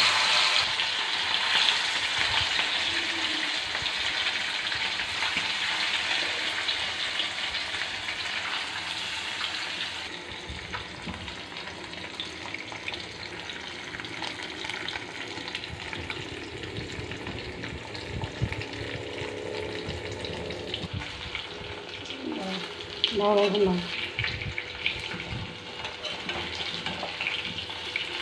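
Pieces of rupchand (pomfret) fish deep-frying in hot oil in a kadai, a steady crackling sizzle. It is loudest just after the fish goes into the oil and settles to a quieter sizzle after about ten seconds.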